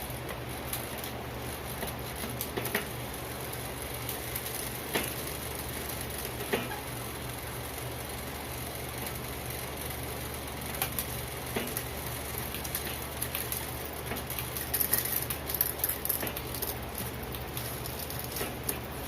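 Mountain bike on a repair stand being worked on: scattered light clicks and knocks, with a quick cluster of them near the end, over a steady low hum.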